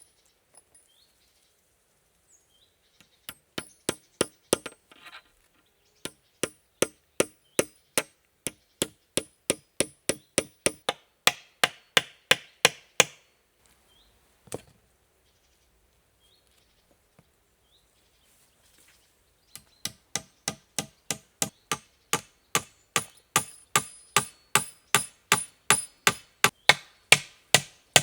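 Repeated hammering blows of a tool striking wood, each with a faint metallic ring, at about two to three a second. The blows come in runs: a short one, then a long steady one, then a pause broken by a single knock, then a faster run near the end.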